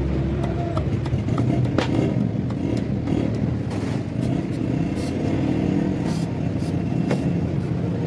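Steady rumble of motor vehicle engines, with a few short, sharp knocks and clicks scattered through it.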